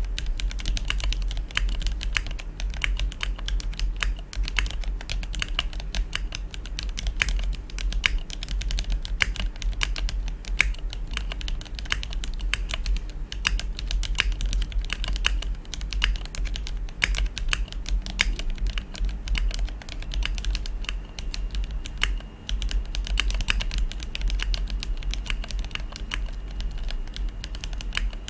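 Fast, continuous typing on a Tofu60 mechanical keyboard with lubed Gateron Pro Milky Yellow linear switches on a polycarbonate plate and Akko 9009 cherry-profile keycaps: a dense, uneven run of keystroke clicks.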